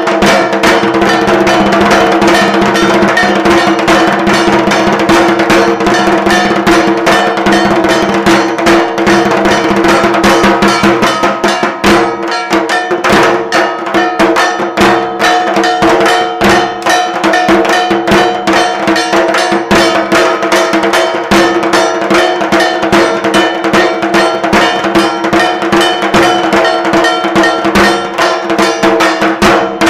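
Loud, fast percussion: a metallic clanging beat struck many times a second over drums, with a steady ringing drone underneath. The level eases slightly about twelve seconds in, and the beat runs on.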